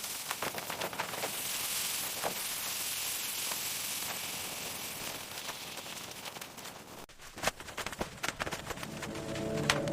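Steady hiss with scattered sharp clicks and crackles, which come thicker a little after halfway.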